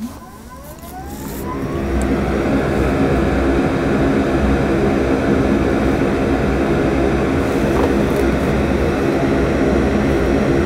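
Solder smoke absorber (fume extractor fan) switched on with a click, its hum rising in pitch as the fan spins up over about two seconds, then running steadily with a loud, even whir.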